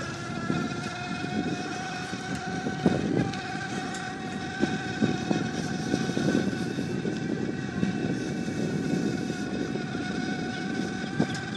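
iZip electric bike's 24-volt assist motor whining at a steady pitch over wind and tyre rumble, with a few sharp knocks along the way.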